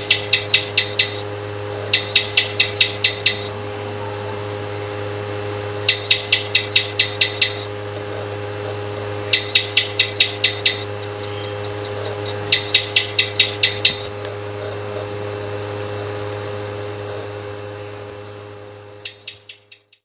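Gecko chirping in quick bursts of about six to eight chirps, a bout every three to four seconds, over a steady low hum. The sound fades out near the end.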